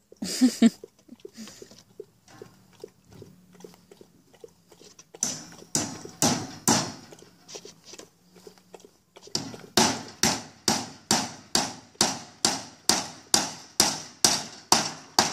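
Hollow wooden knocks and clatters from a goat teeter-totter's plank as Nigerian dwarf goats' hooves walk and jump on it. A few loud knocks come at first and a scattered group about five seconds in, then a steady run of about two knocks a second near the end.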